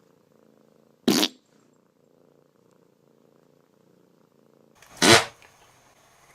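A cat purring steadily and faintly, broken by two short loud farts about four seconds apart, the second one longer.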